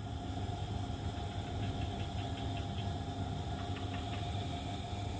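Steady low machine hum with a constant tone above it, and a few faint ticks about two to four seconds in.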